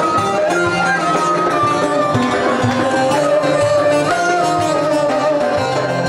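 Turkish folk ensemble playing an instrumental introduction: bağlama (saz) and kabak kemane carry the melody over a steady hand-drum beat.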